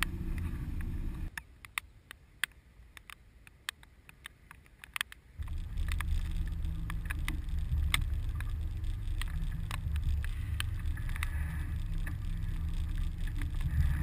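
Boat's outboard motor running with a steady low hum. About a second in it drops away, leaving a few seconds of quiet with scattered sharp ticks, and the hum comes back at about five seconds.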